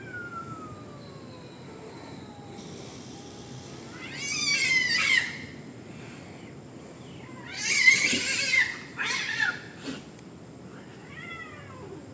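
A cat meowing loudly in complaint: one long meow about four seconds in, a run of three or four more around eight to ten seconds, and a fainter one near the end. A steady high insect buzz runs underneath.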